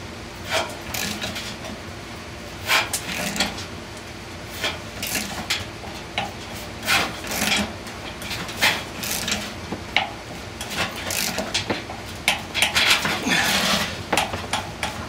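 Ratchet wrench clicking in short, irregular runs, with metal creaks and taps, as it turns a screw-type puller that presses a motor shaft out of a squirrel cage blower wheel's hub. The clicks come thicker near the end.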